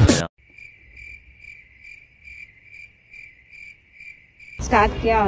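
Crickets-chirping sound effect: a thin, high chirp repeating steadily about two to three times a second, the stock gag for waiting or awkward silence. Electronic music cuts off just before it, and near the end a louder sound falling in pitch takes over.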